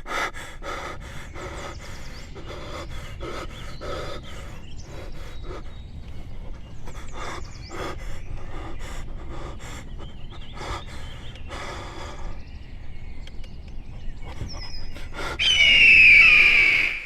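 A person panting and gasping over a run of quick, irregular knocks, then a loud, high-pitched screech near the end.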